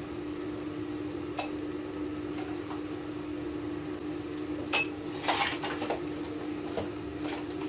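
A metal tablespoon clinking and scraping against a ceramic mug as corn flour is spooned in: a light tap early, one sharp ringing clink a little past halfway, then softer taps and scrapes. A steady low hum runs underneath.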